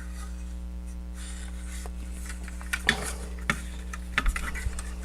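Light plastic clicks and taps from a transforming-robot toy's parts being handled and fitted at their ball joints, a few scattered in the second half, over a steady low electrical hum.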